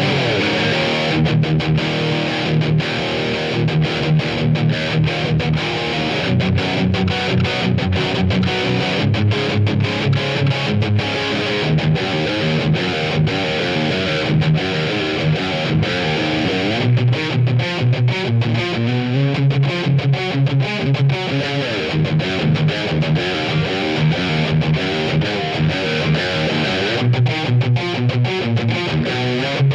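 Electric guitar played through a Valeton GP-180 multi-effects processor set to a distorted tone, picking riffs with repeated low notes and fast, sharp pick attacks without a break.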